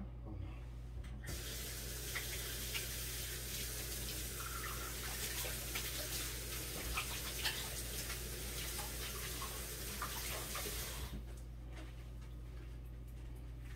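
Kitchen sink tap running while hands are washed under it: a steady rush of water with small splashes, turned on about a second in and shut off near the end. A steady low hum lies beneath.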